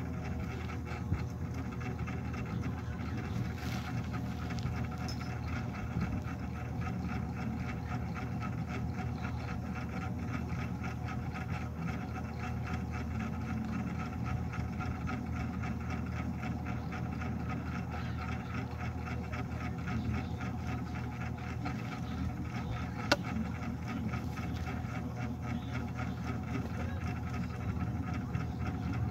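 Steady motor hum running without change. A sharp click comes about 23 seconds in.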